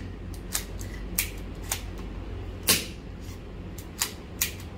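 Custom KJW Shadow 2 gas blowback airsoft pistol firing about half a dozen sharp shots at uneven intervals. The shots are a lock-back test: the pistol is fired to check that the slide locks back on an empty magazine.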